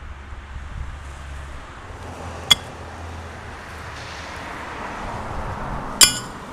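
Pitched horseshoes striking a metal stake in a sand pit: a sharp clink about two and a half seconds in, then a louder ringing clang near the end as the second shoe hits the stake and lands on the first. A steady rumble of road traffic runs underneath.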